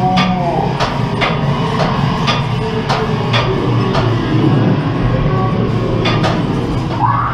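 Ghost-train ride car clattering along its track, with irregular sharp knocks, over the ride's soundtrack music and a steady low hum.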